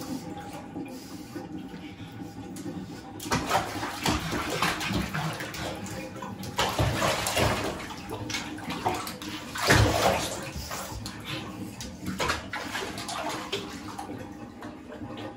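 Pug puppy splashing through shallow bathwater, its paws churning the water in irregular bursts that start about three seconds in, the loudest splash about ten seconds in.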